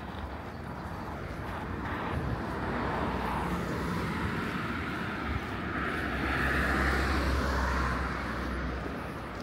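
A motor vehicle passing by, its noise swelling slowly to a peak about two-thirds of the way through and then fading.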